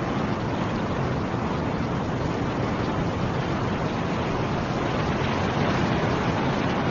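Snowstorm wind rushing steadily, an even noise at a constant level with no distinct gusts.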